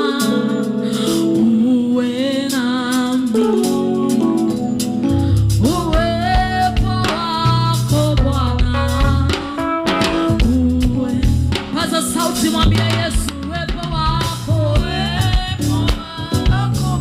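Live Swahili gospel worship song: singers over a band, with bass and drums coming in about five seconds in.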